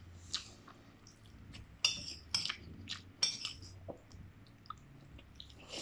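Cutlery clinking against a bowl of noodle soup during eating, a handful of short sharp clinks with quieter taps between.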